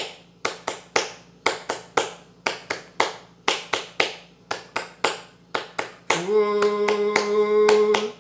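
Capoeira palmas: a man clapping his hands in a steady rhythm, about two claps a second with some quick doubled claps. About six seconds in his voice starts singing a long held note over the clapping.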